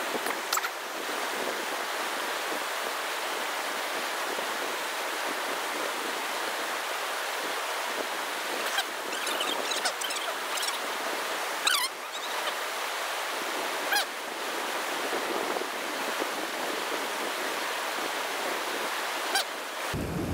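Steady rushing of a small mountain river, an even hiss of flowing water, broken now and then by a few brief sharp clicks and chirps.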